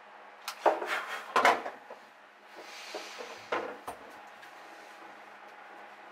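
Hands handling plastic hose and fittings: a cluster of knocks and clatters with some rubbing, a short hiss, then one more knock.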